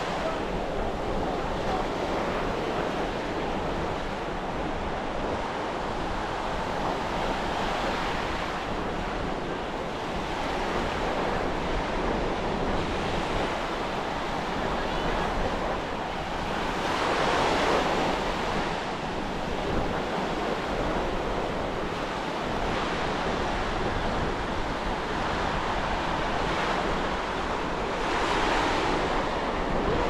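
Atlantic surf breaking on a sandy beach: a continuous wash that swells as waves break, most plainly a little past halfway and again near the end. Wind rumbles on the microphone underneath.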